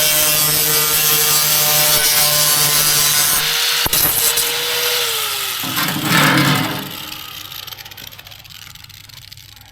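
Angle grinder with a grinding disc working aluminum, a steady whine over a loud gritty noise. About five seconds in the whine sinks in pitch as the motor winds down, a short scraping burst follows, and then only faint handling noise.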